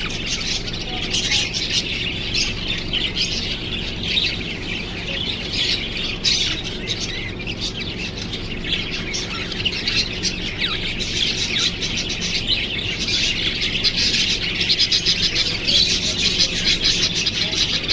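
A flock of small birds chirping and twittering over one another without a break, with the chatter growing busier in the second half.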